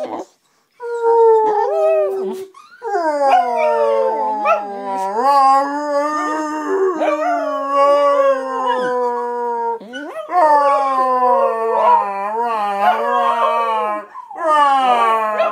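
Dog howling in a series of long, drawn-out howls. Each one slides down in pitch at the start and then holds, with short breaks between them.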